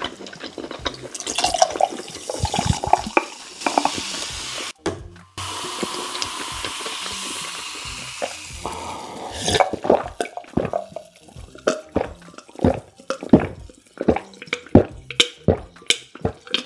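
Carbonated soda poured from a can over ice into a glass mug, splashing and clinking, then fizzing with a steady hiss. From about halfway through, a run of loud swallowing gulps, a little under two a second, as it is drunk.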